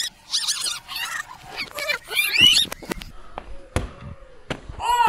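Children calling out, with a rubber ball knocking against empty plastic soft-drink bottles twice, about four seconds in.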